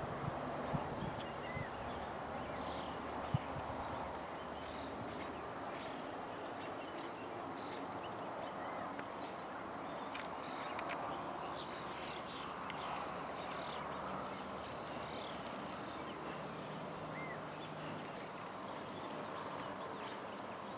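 Cricket chirping steadily in an even, high-pitched pulse, with scattered short higher calls now and then over a faint steady outdoor hiss.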